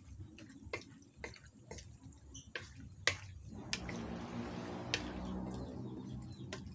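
Cooking spatula knocking and scraping against a metal wok, with irregular sharp clicks, as squid adobo is stirred. From about halfway a steadier rushing sound with a low hum joins in.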